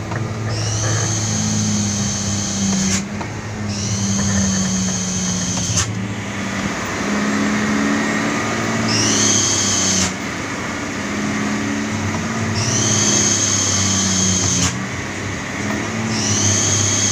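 A loaded dump truck's diesel engine drones steadily in the cab on a steep downhill. A high whine sets in five times, rising in pitch as it starts and then holding for about two seconds each time.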